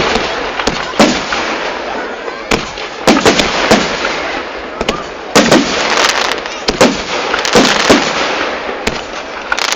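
Fireworks exploding: an irregular barrage of sharp bangs, several a few tenths of a second apart, over a steady crackle.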